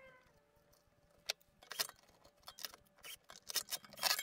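Scattered light metallic clicks and clinks of screws and a cordless drill being handled against a chrome bar stool frame and its swivel plate, busiest near the end.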